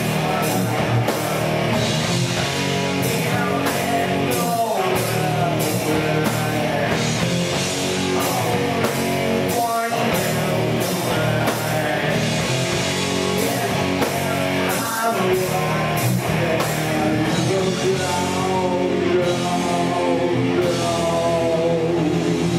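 Live heavy metal band playing loud: distorted electric guitars, bass guitar and a drum kit with crashing cymbals, with a male singer's vocals over them.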